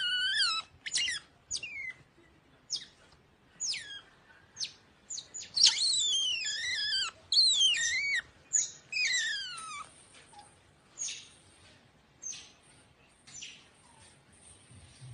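Pet otter giving high-pitched squeaking chirps, each sliding down in pitch, in quick runs. The calls are busiest and loudest through the first ten seconds, then thin out to fainter, scattered chirps.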